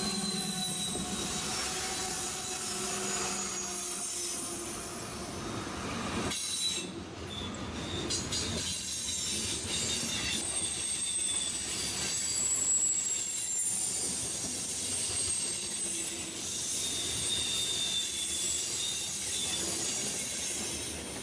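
Freight train of covered hopper cars rolling past at close range: steady rumble of steel wheels on the rails, with thin high-pitched wheel squeal drifting in and out over it. The sound dips briefly about a third of the way through.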